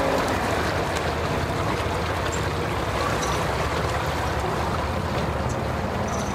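Outboard motor on a center-console boat idling as the boat moves slowly through the water: a steady low hum.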